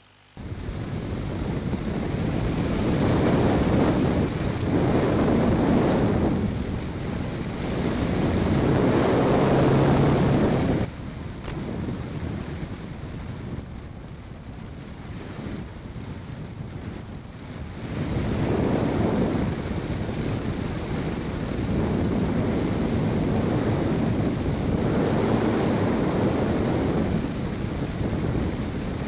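Wind rushing over the onboard camera's microphone on a flying RC plane, swelling and easing every few seconds, with a steady high whine underneath. It cuts in abruptly a moment after the start.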